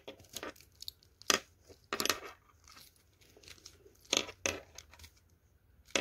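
Tiny keychain Rubik's cube being turned by hand: about eight short plastic clicks and scrapes as its stiff layers are forced round, the pieces hard to turn.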